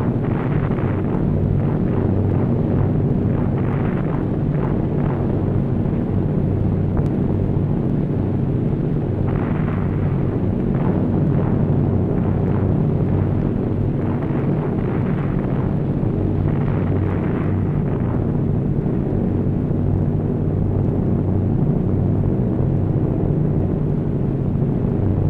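Steady drone of aircraft engines, with a series of bomb explosions rumbling over it every few seconds during the first two-thirds.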